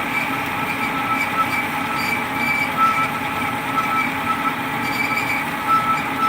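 Amada HA-250 hydraulic horizontal bandsaw running, its band blade squeaking through the carbide blade guides in short, high-pitched chirps every second or so over a steady whine. The blade runs dry, without coolant, which is why it squeaks.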